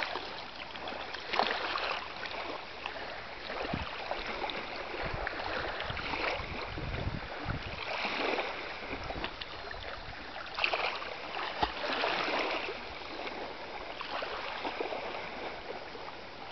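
Calm sea water lapping and sloshing in the shallows, rising and falling in irregular swells, with a low gust of wind on the microphone about seven seconds in.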